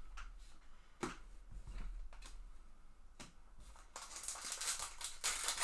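A few light clicks and taps of trading cards being handled. About four seconds in, a foil trading-card pack wrapper crinkles loudly as it is opened.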